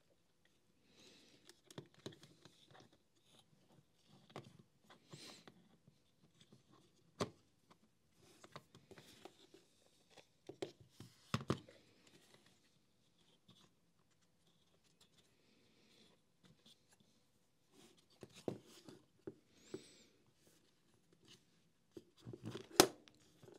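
Plastic housing parts and wiring of a cordless heat gun being handled and fitted together by hand: scattered light clicks, rustles and knocks, the loudest about 11 seconds in and near the end.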